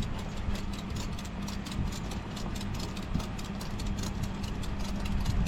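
Vehicle engine idling with a steady low hum, with many irregular light clicks over it.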